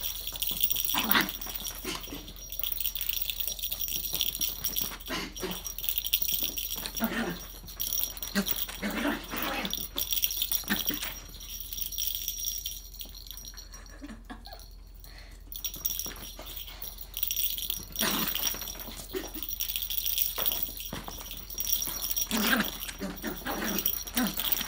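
Small Pomeranian–Chihuahua mix dog making short vocal sounds on and off during play, with scattered knocks and scuffles.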